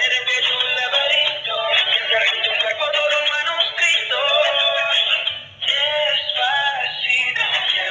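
Dancing cactus toy playing a song with singing through its small built-in speaker, thin and tinny with almost no bass. It breaks off briefly a little past halfway, then the song carries on.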